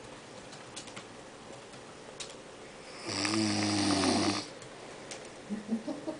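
A man snoring: one loud snore starts about three seconds in and lasts just over a second, with quieter breathing before it.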